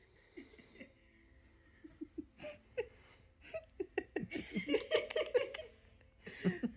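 A person laughing: a run of short giggles that builds to its loudest in the middle and trails off near the end.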